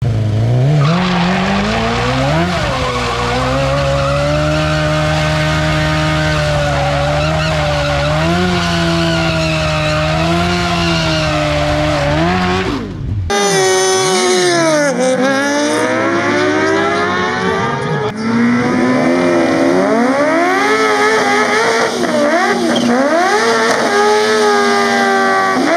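A sportbike engine is held at high revs, pitch fairly steady, through a burnout, with the rear tyre spinning on the track. About halfway it cuts abruptly to a second sportbike's engine revving up and down in repeated swings during its burnout.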